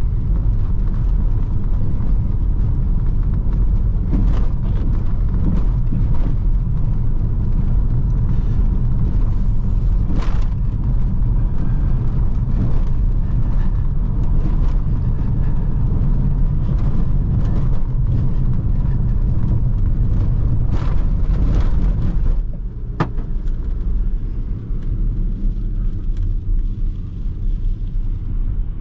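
Inside the cabin of a 2005 Renault Laguna II on a cobblestone road: a steady heavy tyre and suspension rumble with scattered knocks and rattles. About three quarters of the way through, the car reaches smooth asphalt and the rumble drops and eases.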